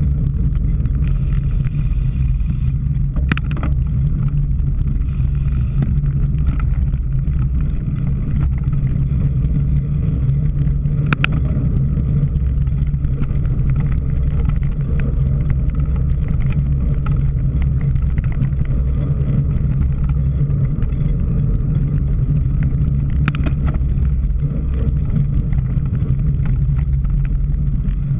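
Steady low wind rumble buffeting the microphone of a bike-mounted or helmet camera while riding a cyclocross bike, with a few sharp clicks or knocks from the bike along the way.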